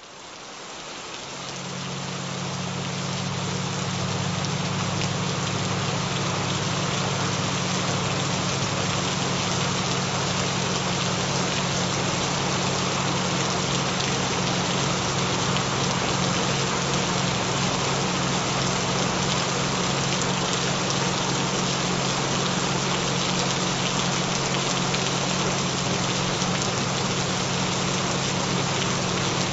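Steady rain sound fading in over the first few seconds, with a few steady low hum tones, the session's binaural-beat frequencies, coming in about a second and a half in.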